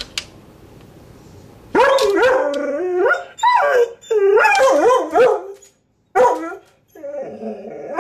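Pet dog whining and howling in a string of about five rising-and-falling cries, starting about two seconds in: excited and straining to be let out at a raccoon it can see outside.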